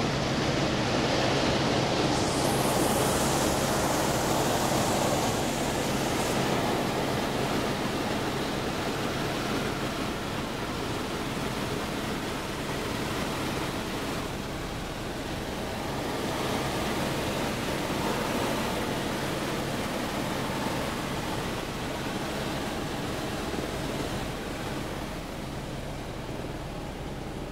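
Helicopter cabin noise in flight: a steady drone from the engine and rotor under a constant rush of air, a little louder for the first few seconds.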